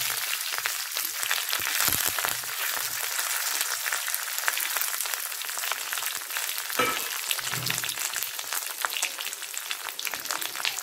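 Mustard seeds, dried red chillies and curry leaves frying in hot coconut oil in a pan: a steady sizzle thick with crackling, the tempering for a chutney.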